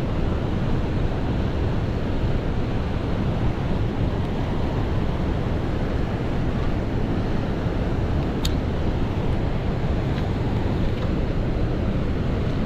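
Steady rushing of water pouring through a dam spillway, heavy and even, with one faint click about eight and a half seconds in.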